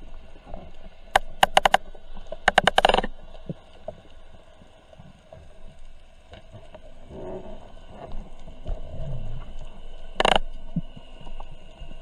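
Underwater sound picked up by a diving camera in its housing: a muffled wash of water with a run of sharp clicks about a second in, a denser run of clicks a second later, and one more sharp click near the end.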